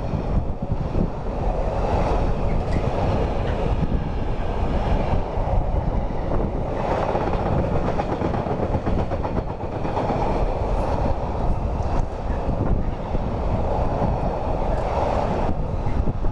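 A train passing on the main line: a steady rushing rumble of wheels on rail that swells and eases several times.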